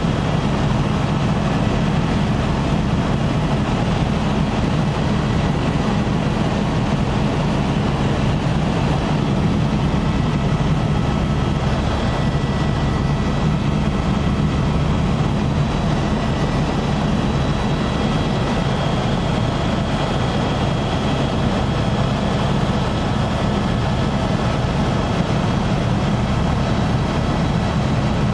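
Helicopter cabin noise in steady flight: a constant low engine and rotor drone with a faint high-pitched whine above it.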